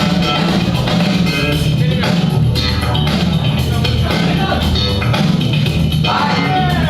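Funk music played loud by the DJ, with drums and guitar over a steady beat.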